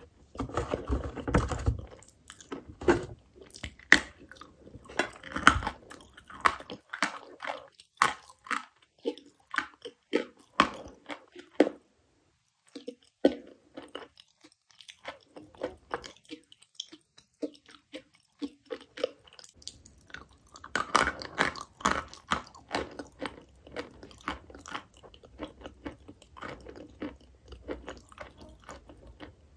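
Dry chalk dipped in clay paste being bitten and chewed: a long run of sharp crunches, thickest about a second in, around five seconds and again around twenty seconds.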